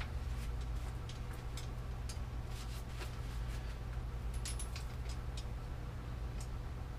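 Scattered small clicks and taps, irregularly spaced, from hands working on a bicycle's front wheel and brake, over a steady low hum.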